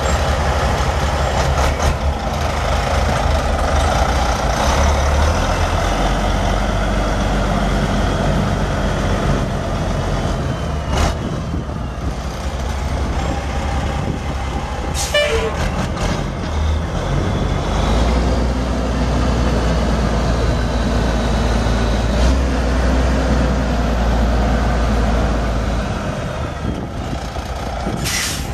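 Caterpillar 3406 inline-six turbo diesel of a heavy dump truck running steadily, its low rumble growing heavier for several seconds about two-thirds of the way through. A few brief sharp sounds stand out above it.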